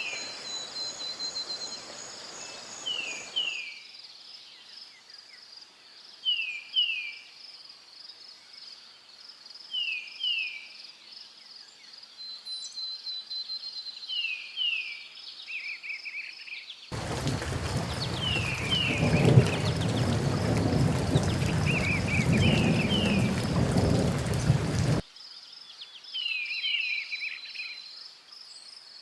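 Forest ambience: a bird repeating a pair of short falling chirps every three to four seconds over a steady high insect trill. For about eight seconds in the second half a loud rushing noise covers everything, starting and stopping abruptly.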